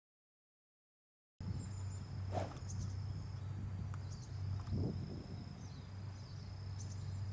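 Outdoor ambience of insects chirping, a steady high trill with small chirps over it and a low hum beneath, starting after about a second and a half of dead silence.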